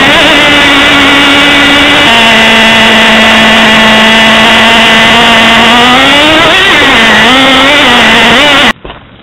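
Traxxas T-Maxx 2.5's small two-stroke nitro engine running at high revs, heard loud and close from on top of the truck: a steady high whine that steps down in pitch about two seconds in, climbs and wavers near the end, then cuts off abruptly.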